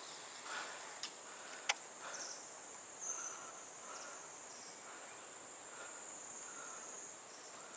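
Steady, high-pitched chorus of insects droning without a break, with one sharp click about two seconds in.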